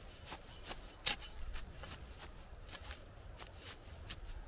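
Metal spade being worked into dry soil and straw: a run of short, irregular scrapes and crunches, the loudest about a second in.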